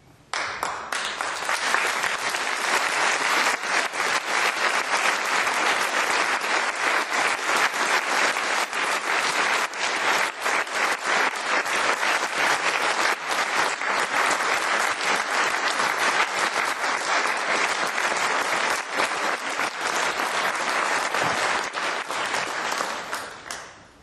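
Audience applauding, starting suddenly and dying away near the end.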